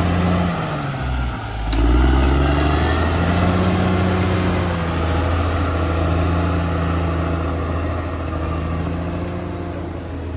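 Diesel engine of a Caterpillar D6R XL bulldozer working under load. Its pitch drops about half a second in, picks back up around two seconds in, and then runs steady.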